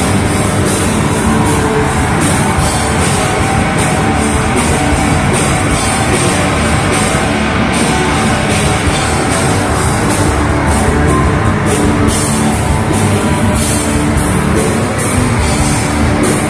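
A live rock band playing loud, with distorted electric guitar and a drum kit whose cymbals crash in a steady beat throughout.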